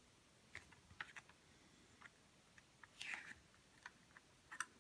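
Near silence with a few faint, scattered plastic clicks and a short scrape, about three seconds in, as the opened FireAngel STX620 smoke alarm's casing is handled.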